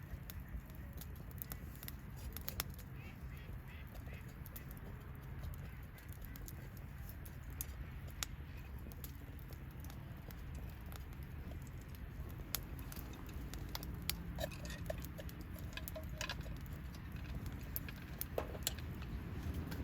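Wood bonfire crackling, with irregular sharp pops and snaps over a low steady rumble.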